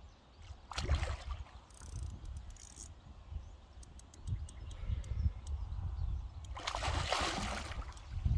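A hooked fish thrashing at the surface of the lake near the bank: a short splash about a second in, then a longer, louder burst of splashing at about seven seconds as it boils on the surface.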